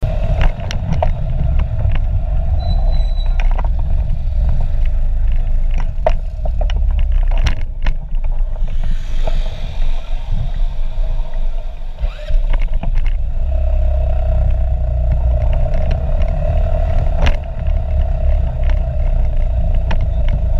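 Chinese Vespa-style scooter's small engine running under load as it climbs a steep hill, a steady drone over a low rumble that grows louder about two-thirds of the way through. Scattered knocks from bumps in the road, with a stretch of wind hiss in the middle.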